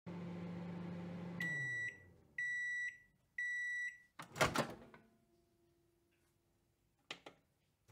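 Microwave oven running with a low hum that winds down as the cycle ends, followed by three evenly spaced high beeps signalling the timer is done. About four seconds in comes a loud clunk of the door latch opening, then a couple of short clicks near the end.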